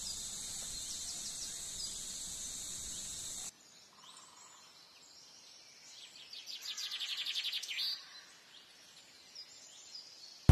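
Outdoor background with a steady high hiss for the first three or so seconds, then quieter, with scattered bird chirps and a fast trill of about ten pulses a second in the middle.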